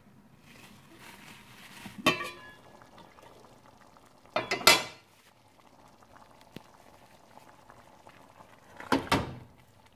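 Metal pot lid clinks with a ringing tone about two seconds in, then clatters loudest a couple of seconds later as it is lifted off and set aside, under the low bubbling of lentil dal simmering in the steel pot. Another short clatter of metal comes near the end.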